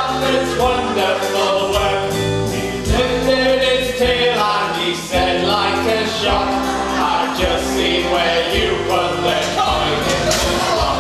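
Stage musical number: a group of voices singing over backing music with a steady beat.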